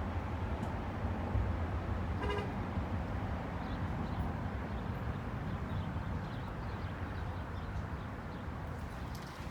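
A single short horn toot about two seconds in, over a steady low rumble.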